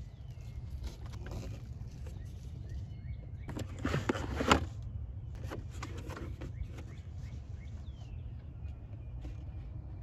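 Cardboard box flaps and cardboard inserts being handled and lifted out of a shipping box, with scattered rustles and knocks. The loudest is a longer scraping rustle about four seconds in that ends in a sharp knock. Birds chirp in the background over a steady low rumble.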